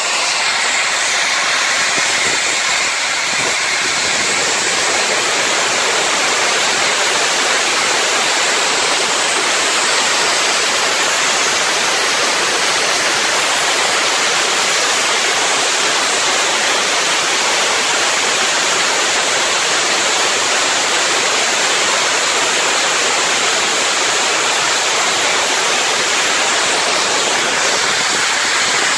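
Union Pacific Big Boy 4014 steam locomotive venting steam from its open cylinder cocks: a loud, steady hiss with no chuffing rhythm.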